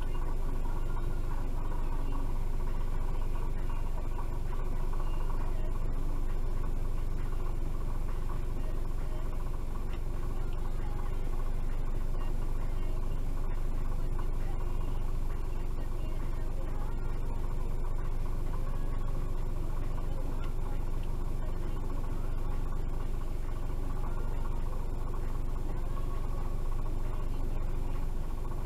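Car engine idling while stopped, a steady low rumble heard from inside the cabin.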